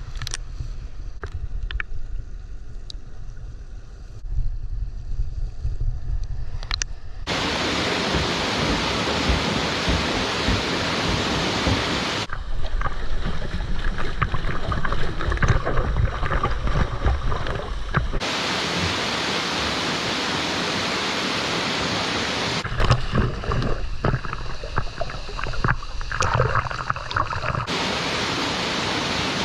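Rushing water of a waterfall: a steady roar of falling water across several cut-together clips. For the first few seconds there is mostly a low rumble, like wind on the microphone, with a few clicks.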